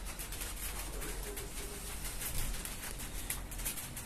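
Pigeon cooing faintly in a few short low coos, over a steady background hiss.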